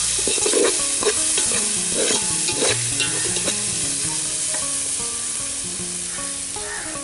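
Onions and garlic sizzling as they fry in oil in an aluminium pot, with a spoon stirring and scraping against the pot for the first few seconds. After that the sizzle carries on steadily without stirring. The onions are just beginning to soften.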